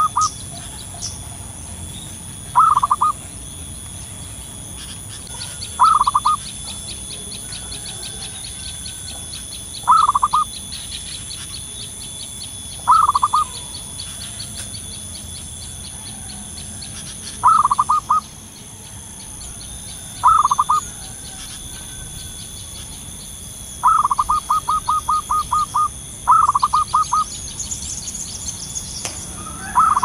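Zebra dove (perkutut) cooing: short bursts of quick staccato notes, repeated about every three to four seconds, with a longer run of rapid notes near the end. A faint, fast, high ticking runs underneath through the middle.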